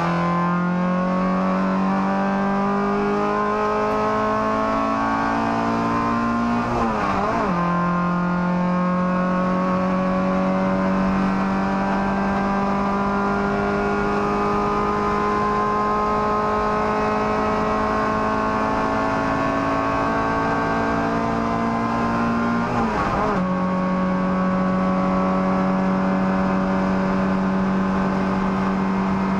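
Toyota Starlet EP91's 1.3-litre 4E-FE four-cylinder engine under full load, heard inside the race car's bare cabin, its note climbing steadily. About seven seconds in and again about two-thirds through, a quick upshift drops the pitch before it climbs again.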